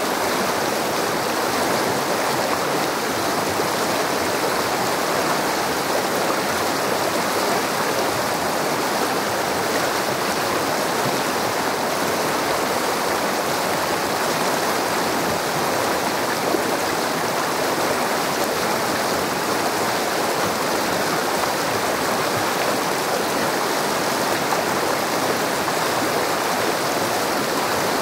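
Shallow river running steadily over a rocky bed: an even, continuous rush of water.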